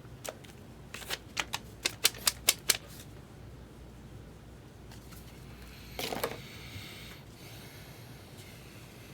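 Trading cards being flicked through and snapped down by hand: a quick run of about eight sharp clicks, then a short scratchy rustle about six seconds in.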